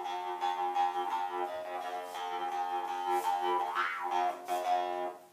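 Jaw harp played: a steady drone rich in overtones, with the bright overtone band sweeping down and back up a few times as the mouth shape changes. It stops just before the end.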